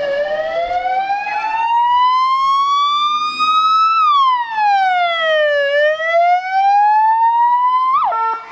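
Wail siren of a SMURD emergency vehicle, its pitch rising and falling slowly in long sweeps. It cuts off suddenly near the end with a short upward chirp.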